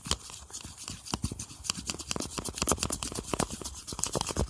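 A knife stirring slime in a plastic cup: rapid, irregular scraping and clicking.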